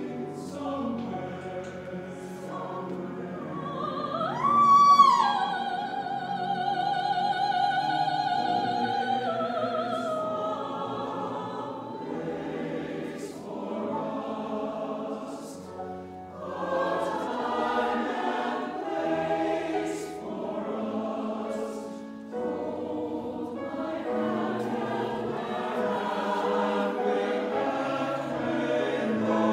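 Mixed choir singing with full harmony. About four seconds in, one high note slides up above the choir and is held with vibrato for several seconds; it is the loudest moment.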